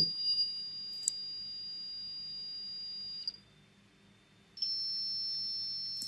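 Arduino-driven passive buzzer sounding a steady high-pitched square-wave tone, made by switching the pin on and off every few tens of microseconds. It cuts out about three seconds in and comes back just over a second later at a slightly higher pitch, as the half-period is shortened to 90 microseconds. A faint click about a second in.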